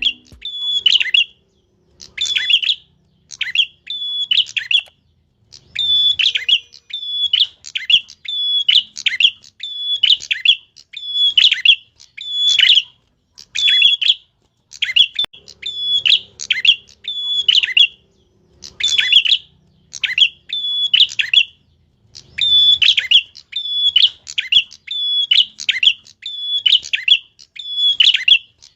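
A small songbird kept by Indonesian bird hobbyists, the 'tilek', singing loudly and persistently: short, sharp, high chirping phrases repeated about once a second, in runs broken by brief pauses.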